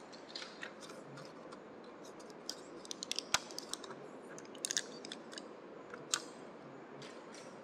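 Scattered small clicks and crackles, sharp and irregular, bunched towards the middle, over a steady background hiss.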